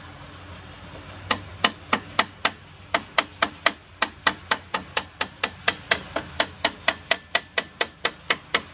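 A hammer strikes the steel pivot pin at a Case 580B backhoe's boom-cylinder eyelet, driving the pin in. There are about thirty sharp metallic blows at a steady four or so a second, starting about a second in, each with a short ring.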